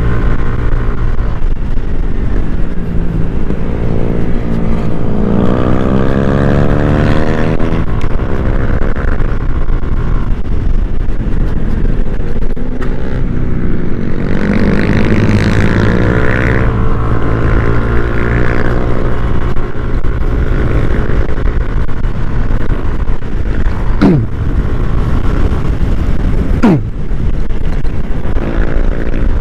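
Motor scooter riding at speed, its engine note rising in pitch twice as it accelerates, about five and fifteen seconds in, over a steady low rumble. Near the end come two brief sharp downward sweeps.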